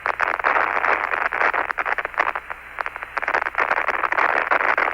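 Radio static crackling over Apollo 17's lunar module air-to-ground link: a steady hiss full of irregular clicks.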